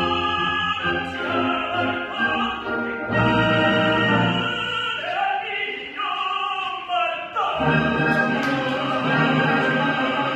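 Male operatic singing in bel canto style, a tenor and bass duet with instrumental accompaniment. The low accompaniment drops away for about two seconds midway, leaving the voice alone, then returns.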